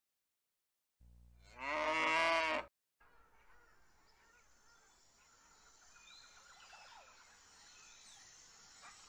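A cow moos once, a single call of about a second. After it only a faint outdoor background with a few faint chirps.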